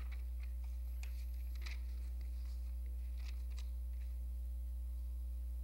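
Steady low hum in the sound feed, with a few faint scattered ticks and rustles.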